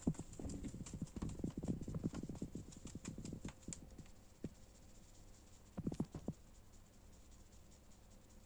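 Pigeons moving about in a cardboard nest box: a run of quick, soft knocks and taps for the first few seconds, then a short cluster of knocks about six seconds in.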